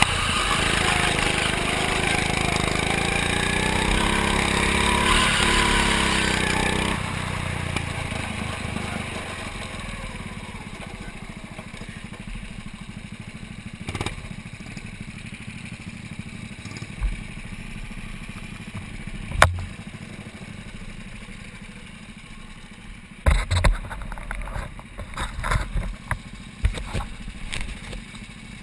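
Go-kart engine running at speed, its pitch rising and falling with the throttle, then dropping abruptly about seven seconds in to a quieter steady hum as the kart comes off the pace. A few separate knocks follow. Near the end comes a run of bumps and rubbing as a gloved hand handles the camera.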